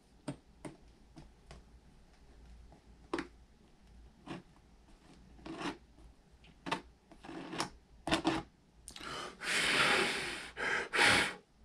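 A plastic welder's hot tip scraping and tapping as it presses a wire mesh screen down into a plastic RC truck body, giving scattered light clicks and scrapes. Near the end come two bursts of blowing close to the repair.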